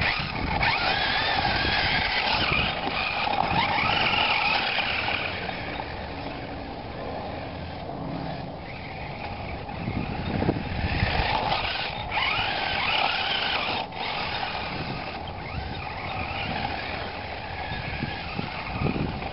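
Toy radio-controlled monster truck's electric motor whining, its pitch rising and falling repeatedly with the throttle as it drives over snow. Loudest in the first few seconds while the truck is close.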